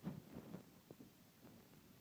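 Near silence, with a few faint soft knocks in the first second.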